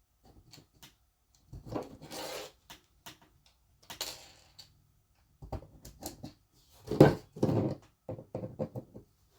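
Small plastic and metal parts of an RC car differential being handled and worked by hand: scattered clicks, rattles and brief scraping, with one louder knock about seven seconds in.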